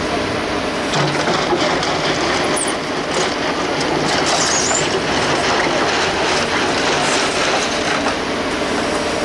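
JCB 3CX Eco backhoe loader's diesel engine and hydraulics running while the operator works the backhoe levers: a loud, steady running noise with scattered clicks and knocks.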